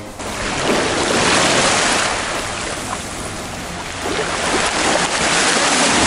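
Sea surf: small waves washing in, swelling about a second in and again around four seconds in.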